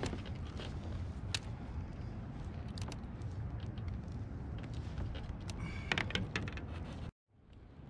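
Small clicks and light clinks of fishing tackle and a landing net being handled in a kayak while a just-landed fish is worked free, over a steady low rumble. The sound cuts off abruptly about seven seconds in.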